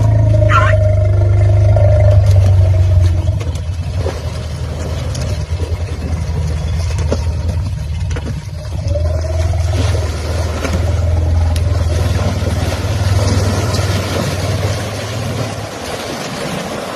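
Asian elephants rumbling in a river, a deep sound that swells and fades and drops back for a few seconds in the middle, with a short rising squeak about half a second in.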